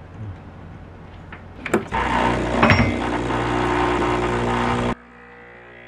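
Portafilter knocking into the group head of a home espresso machine, then the machine's pump buzzing steadily for about three seconds as the shot starts, cutting off suddenly.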